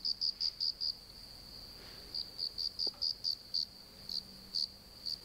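A cricket chirping: short, high-pitched chirps repeating about six times a second, breaking off for about a second before starting again.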